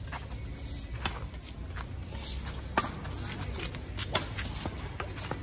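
Badminton rackets striking a shuttlecock during a doubles rally: a series of sharp hits, the two loudest a little under a second and a half apart in the middle, with players' shoes shuffling on concrete.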